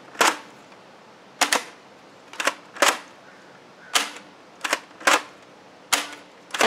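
Six-shot toy revolver blaster being worked and fired over and over: its cylinder rotating, priming on the top and firing. It gives a series of sharp plastic clacks and snaps, often in pairs, about one or two every second.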